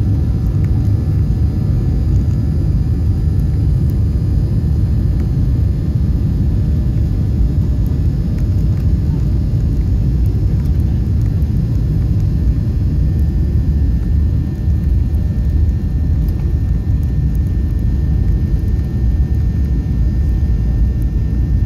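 Cabin noise of a Ryanair Boeing 737 on its takeoff roll: the jet engines running at high power and the plane rolling down the runway, a steady, deep noise heard from inside over the wing.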